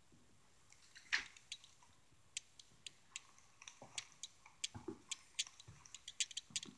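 Footsteps on a bare plywood subfloor: irregular sharp clicks and ticks with a few soft low thuds, coming thicker after about three seconds.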